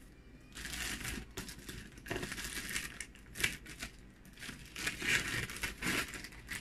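Thick plastic courier pouch being cut with scissors and pulled open, its plastic crinkling and rustling in uneven bursts.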